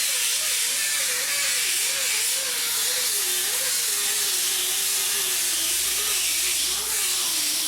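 Steady hissing noise, with a faint wavering tone that slowly drifts lower in pitch.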